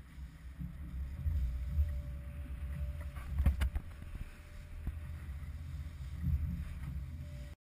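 Small boat's hull pounding through choppy waves with wind buffeting the microphone, and a sharp bang about three and a half seconds in as the bow slams a wave and throws spray. The sound cuts off suddenly near the end.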